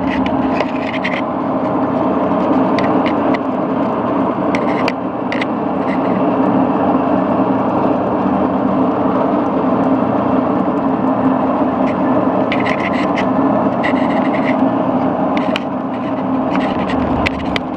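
Axelson gear-head engine lathe running: a steady roar from its heavy headstock and quick-change gear trains, its headstock freshly oiled and sounding smooth. Scattered light clicks and ticks come in clusters over the top.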